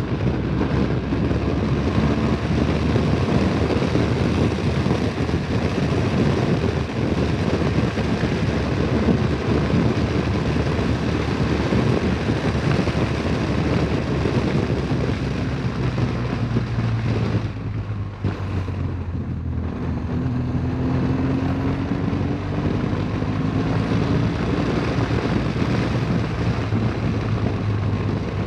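BMW R1200GS boxer-twin engine running at road speed, with wind noise on the microphone. About two-thirds through, the sound briefly eases off, then the engine note rises in pitch as the bike accelerates.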